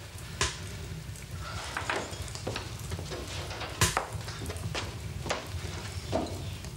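Spoons and china clinking at a breakfast table: a run of small, sharp clicks and scrapes of cutlery on bowls and cups, the loudest clink a little before four seconds in, over a low steady hum.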